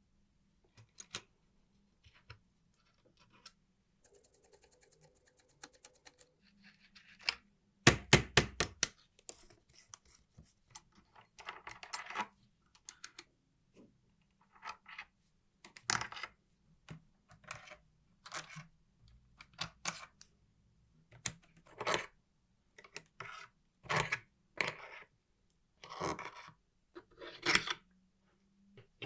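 Small metal parts of an old mechanical calculator clicking and clinking as they are handled on a hard surface. A fast run of faint ticks comes about four seconds in, followed by a short, dense burst of loud rapid clicks about eight seconds in, then single clinks every second or so.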